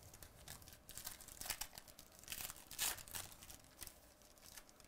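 Foil wrapper of a trading-card pack crinkling and tearing as it is ripped open by hand, a run of crackles loudest about three seconds in.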